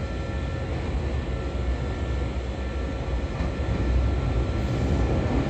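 Electric commuter train pulling slowly into the platform: a low rumble of wheels and running gear on the rails that grows gradually louder as it approaches.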